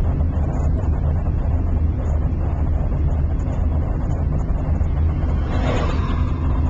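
Road and tyre noise inside a car's cabin as it freewheels downhill under no power: a steady low rumble. Near the end, oncoming cars pass and the noise swells briefly.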